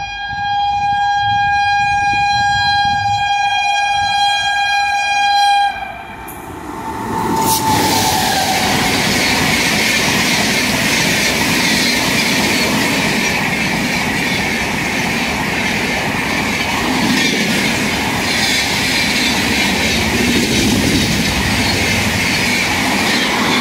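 Electric-hauled express train passing through a station at high speed without stopping: the locomotive's horn sounds one long steady blast for about six seconds, then a sharp crack and the loud rush and rattle of its LHB coaches racing past close by.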